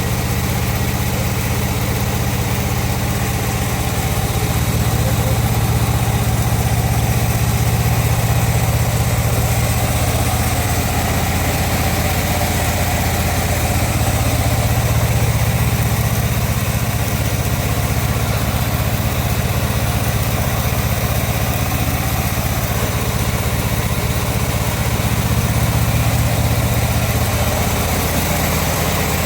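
Sawmill machinery running: an engine keeps up a steady low hum that grows slightly louder about four seconds in and eases off near the end.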